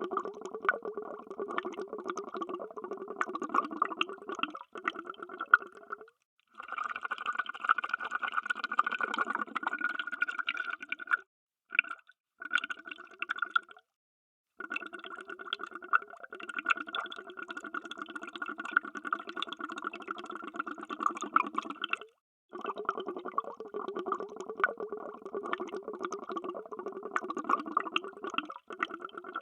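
Underwater bubbles sound effect: a dense stream of bubbling and popping, broken several times by short gaps of silence.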